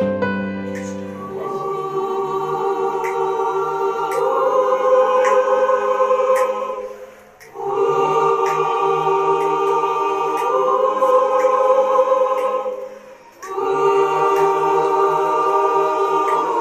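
A choir singing a slow hymn in sustained chords, in long phrases with two brief breaks between them.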